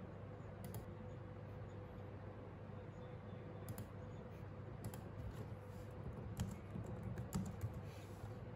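Laptop keyboard typing: a few isolated clicks, likely from the wireless mouse, then a quicker run of keystrokes in the last two seconds, over a faint steady hum.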